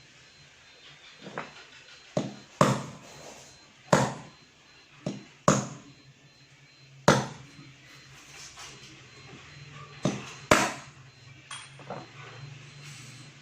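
Hammer tapping in irregular single blows, about ten of them, each with a short ringing tail.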